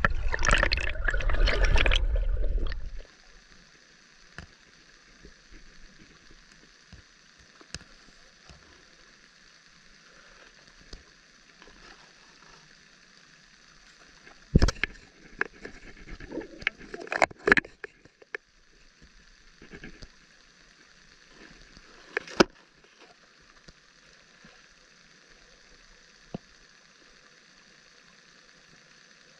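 Water sloshing and gurgling around a camera for the first few seconds, then the muffled hush of an underwater camera: a faint steady hiss broken by a few sharp knocks about halfway through and once more later.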